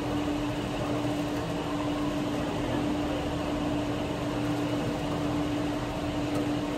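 Steady casino-floor din from the surrounding slot machines: an even wash of noise under a constant low hum.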